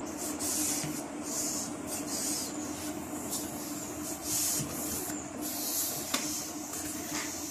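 Hand balloon pump inflating a long modelling balloon: repeated hissing puffs of air, roughly one per pump stroke each second, over a faint steady hum.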